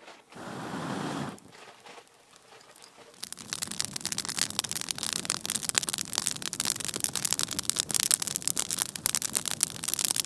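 Campfire of kindling and small sticks crackling and popping densely from about three seconds in. Before that, near the start, a short rush of breath is blown onto the smoking embers to bring the fire up.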